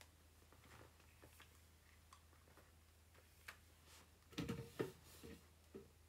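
Mostly near silence over a steady low hum, with scattered light clicks of handling. About four and a half seconds in comes a short cluster of louder knocks and rustles as a hair straightener is picked up and handled.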